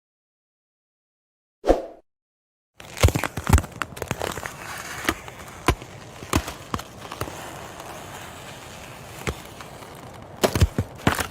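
Ice cracking: after a short silence and a brief thud, dense crackling starts about three seconds in, with many sharp cracks and pops over it, thickest at first and again near the end.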